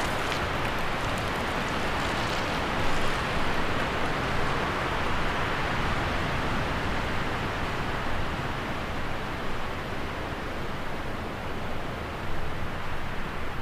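Steady rushing noise with no distinct events, its hiss fading a little in the highs after a few seconds.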